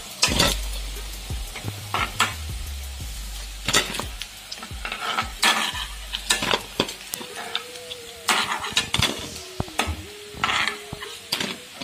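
Moong dal pakoras sizzling in hot oil in an iron kadhai, while a steel ladle scrapes and clinks against the pan and a steel plate as the fried pakoras are lifted out, with many sharp clinks throughout.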